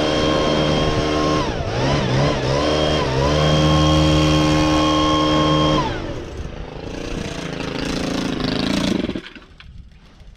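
Blower running at high speed, blasting sawdust off a sawmill. Its pitch sags and recovers about two seconds in, then it winds down about six seconds in, leaving a fainter rushing sound that fades out near the end.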